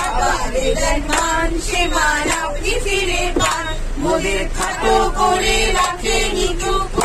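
A group of bus passengers singing a song together, male and female voices mixed, over the steady low rumble of the moving bus.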